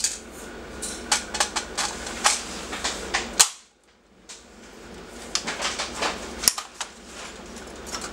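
ARMY R85 L85A1 blowback airsoft electric rifle firing single shots, each a sharp mechanical clack of the gearbox and blowback bolt, irregularly spaced. The sound drops out for about a second in the middle.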